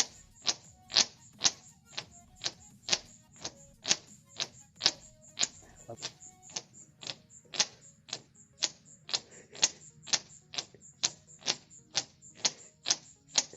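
A thumb pressed into small pits in a carved surface and snapped out again and again, each pull giving a sharp pop of released air. The pops come about two a second in a steady run.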